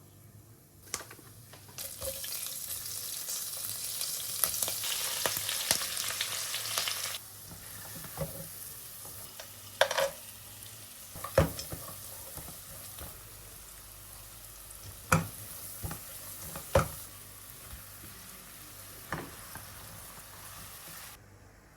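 Food frying in hot oil in a pan: a loud sizzle for about five seconds that drops to a quieter steady sizzle, with a cooking utensil knocking against the pan several times as it is stirred.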